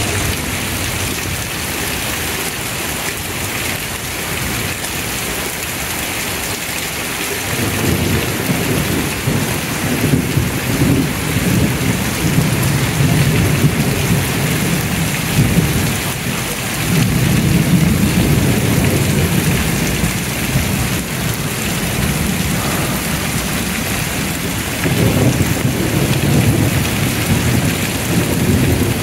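Heavy rain pouring onto a flooded street, a steady hiss. Starting about a quarter of the way in, a deep rumble rises beneath it in three long swells.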